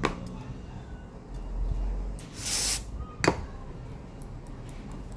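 Steel cuticle nippers being handled and worked by hand on a workbench: a few small clicks, a low rumble, then a brief hiss a little over two seconds in, followed by a sharp click, the loudest sound.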